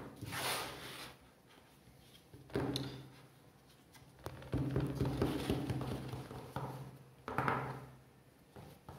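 Handling noises from stretching pizza dough over a metal pan: irregular soft knocks and rubbing, coming in several separate bursts.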